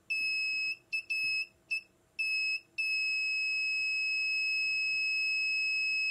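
MCL-Tech inductive short locator beeping a single high tone, first in several broken beeps of uneven length, then holding one steady tone from about three seconds in. The beep means the probe is over the trace carrying the short-circuit current.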